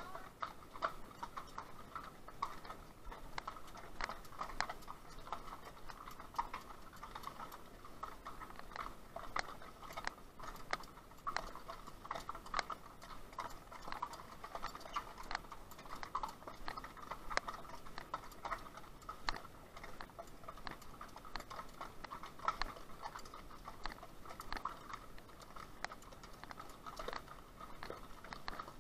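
Horses' hooves clip-clopping at a walk on a rocky trail, a string of irregular sharp clicks.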